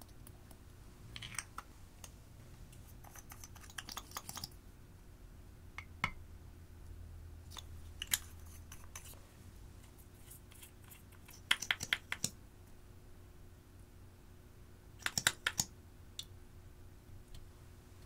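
Small plastic makeup jars and compacts clicking and tapping against a glass dish, with crushed eyeshadow and glitter landing on the glass, in short bursts of quick clicks a few seconds apart.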